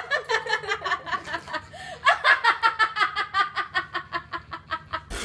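Several people laughing hard, a quick run of ha-ha pulses about five or six a second.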